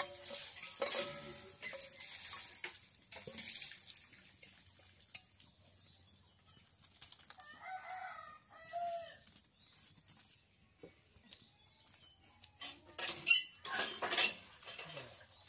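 A stainless steel pot clinking and scraping against a clay pot, with hens clucking in the middle. Near the end come a few loud, ringing metal clanks.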